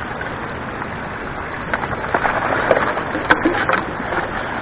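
Water rushing steadily off a highbanker sluice into a creek, with clicks and scrapes of a small shovel digging gravel out of a plastic bucket; the sharpest knock comes about three seconds in.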